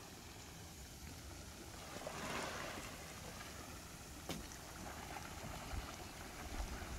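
Wind rumbling on the microphone over a soft, even hiss, with a swell of hissing about two seconds in and one sharp click a little after four seconds.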